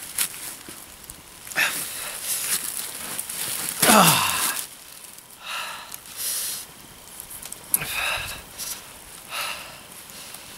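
A man's heavy breaths and sighs, with one loud falling groan about four seconds in, as he pulls off his boots to warm his numb, cold feet at a small fire.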